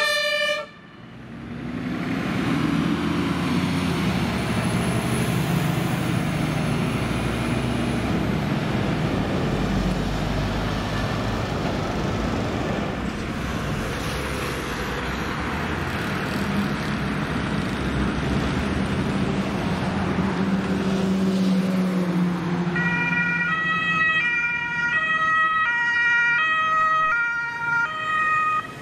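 Heavy truck engine and tyre noise as a Scania fire-brigade hook-lift truck drives past, then road traffic noise. About 23 seconds in, a Hamburg fire-brigade Mercedes Sprinter ambulance's siren starts, stepping back and forth between tones.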